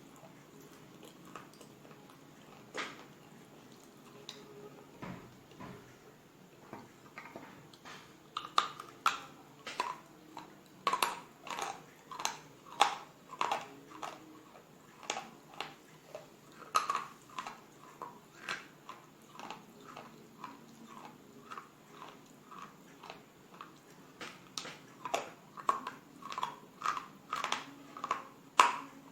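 Slate bars being bitten and chewed close to the microphone: a long run of crisp, gritty crunches, sparse at first and then about two a second.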